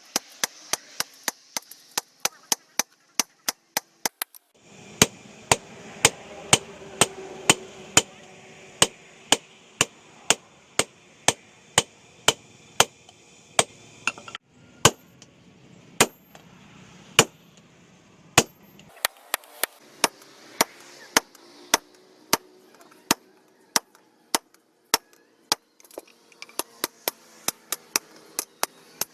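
Sharp knocks or taps repeated in a steady rhythm, about three to four a second at first, slowing to under two a second, then quickening again near the end, over faint background noise.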